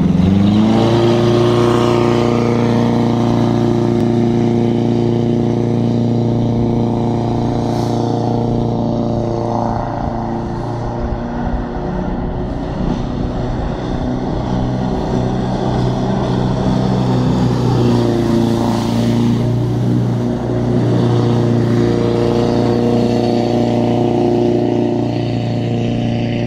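A small alloy jetboat's Subaru 1800 flat-four engine revving up as the boat pulls away, then running steadily at speed. The pitch climbs over the first second and then holds, with the engine note sagging a little in the middle and swelling again later.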